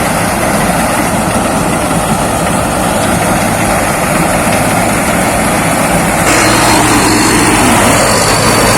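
Rice combine harvester (Thai Seng 'Chao Phayu') running steadily with its engine and threshing machinery going. About six seconds in the sound gets louder and a steady high whine appears.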